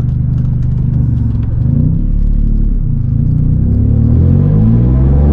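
Nissan 350Z's V6 engine and exhaust under way, pulling with the engine note rising in pitch through the second half. The exhaust has a leak that the owner says keeps getting bigger with drifting.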